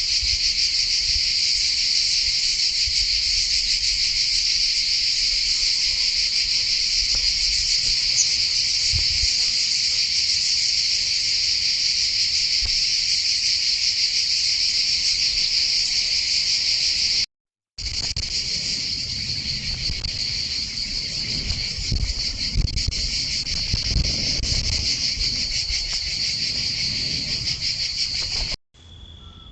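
A dense, steady chorus of insects buzzing. It breaks off for a moment about halfway through, low knocks and rumbles come in over the later part, and near the end the chorus falls away to a quieter single steady tone.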